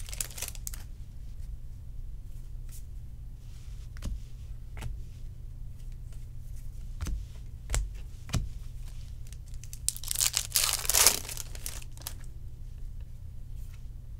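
Trading-card pack wrappers being torn open and crinkled, with scattered light clicks of cards being handled and shuffled; the longest, loudest tearing comes about ten seconds in. A faint low hum runs underneath.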